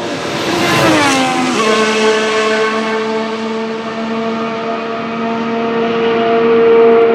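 Formula 1 car's 1.6-litre V6 turbo-hybrid engine (Racing Bulls VCARB03, Red Bull Ford power unit) going past with its pitch dropping about a second in. It then holds a steady note that grows louder toward the end.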